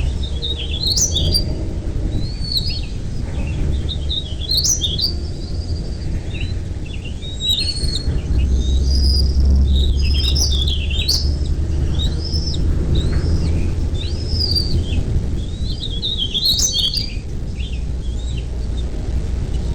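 Birds chirping: clusters of short, high notes that sweep quickly up and down, repeated throughout, over a steady low rumble.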